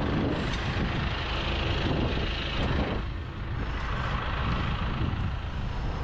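A tractor engine running steadily, with a slight dip in level about three seconds in.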